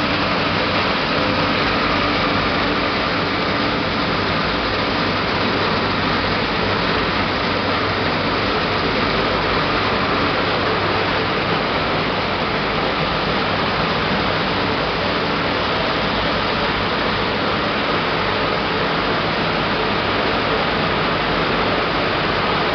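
Machinery of a fruit pomace processing line running: a steady mechanical din with a low hum underneath, unchanging throughout.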